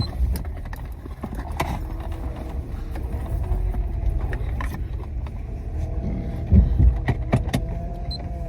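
Low steady rumble inside a car cabin, with scattered small clicks and knocks and a louder low thump about six and a half seconds in.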